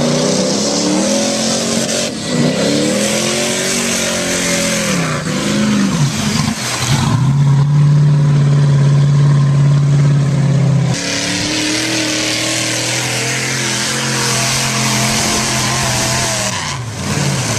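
Engines of modified mud-bog vehicles revving hard through a mud pit, the pitch climbing and falling with the throttle. From about seven seconds in, one engine holds a loud, steady high-rpm note for about four seconds before dropping back.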